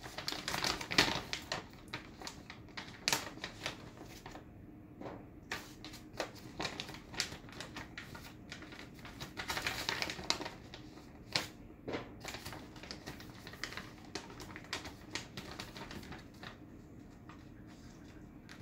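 Handling noise: irregular light clicks and rustling, with longer bouts of rustling near the start and about ten seconds in, over a faint steady low hum.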